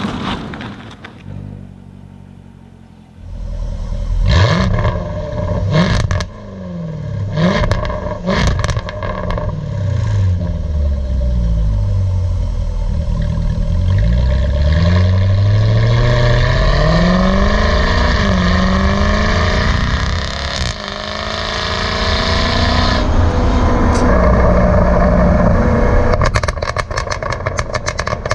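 Jaguar F-Type SVR's supercharged 5.0-litre V8, heard close to its quad exhaust tips. After a quieter first few seconds it revs up and down repeatedly, pitch rising and falling, with sharp pops and crackles from the exhaust, then runs at a steadier pitch near the end.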